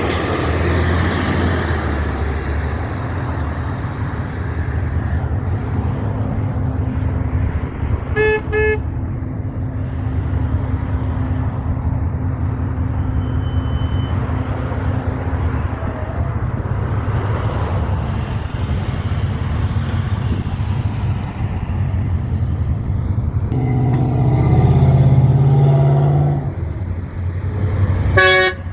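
Heavy trucks passing on a road, a steady engine and road rumble that swells as a louder truck goes by about 24 seconds in. A vehicle horn gives two short toots about 8 seconds in and one more short blast near the end.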